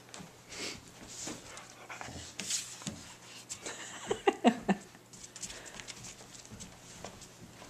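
Tibetan mastiffs playing tug of war at close range: breathing, scuffling and short vocal noises throughout, with a quick run of louder short sounds about four seconds in.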